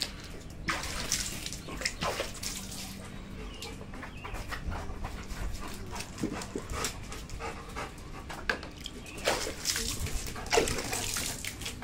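A black Labrador moving about on a wet concrete floor: irregular short splashing and scuffling noises. They are louder about a second in and again near the end.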